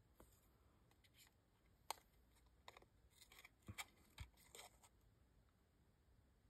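Near silence with a few faint paper rustles and light taps, clustered in the middle, as a kraft paper strip is handled on a cutting mat.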